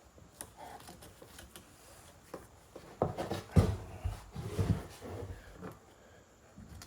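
Irregular knocks and clunks of handling, starting about three seconds in and lasting a couple of seconds: a reciprocating saw, not running, being positioned against wood.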